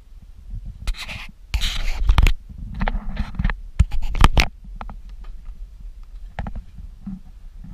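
Scratchy rubbing and knocking handling noise from a hand-held camera carried up a yacht's companionway steps. It is loudest in a run of bursts through the first half, then settles to scattered light clicks.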